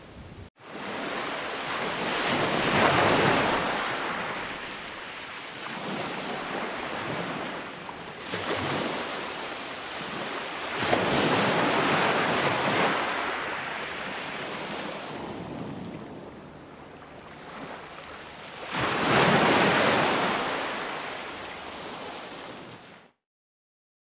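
Ocean surf: waves breaking and washing up the shore in big surges every few seconds. It cuts off abruptly about a second before the end.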